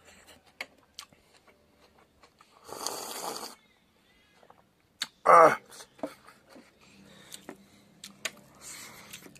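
Close-miked eating sounds of a man eating by hand: a slurp of about a second from a bowl of broth, small clicks and lip smacks, and a short, loud vocal sound about five seconds in.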